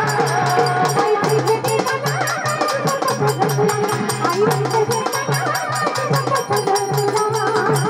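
Traditional Marathi folk music played by percussion and melody instruments, with a fast, even beat of sharp strokes over a repeating low pattern and a wavering melody.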